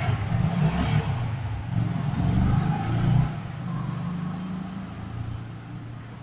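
Low engine rumble of a passing motor vehicle, fading gradually.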